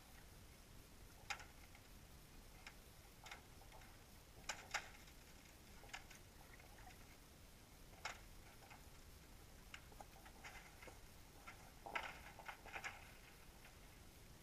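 Faint, irregular ticks and clicks over a low hiss, picked up underwater, with a small cluster of them near the end.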